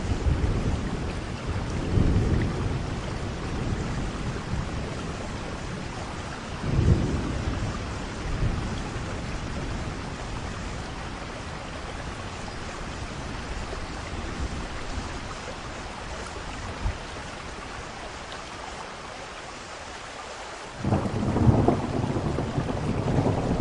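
Steady rain with thunder rumbling several times: a sharp clap about seven seconds in, and the loudest peal near the end.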